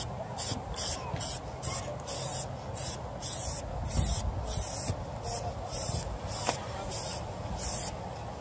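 Aerosol can of UV-curing clear coat spraying in short bursts, about two a second, onto a sanded headlight lens. The spraying stops shortly before the end.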